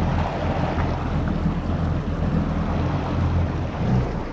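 Yamaha GP1800R SVHO jet ski's supercharged four-stroke engine running steadily, with wind on the microphone and water noise.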